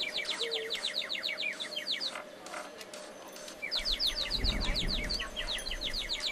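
A songbird singing two rapid trills of short descending notes, about eight to ten a second. The first trill ends about two seconds in and the second starts near four seconds. A brief low rumble comes about four and a half seconds in.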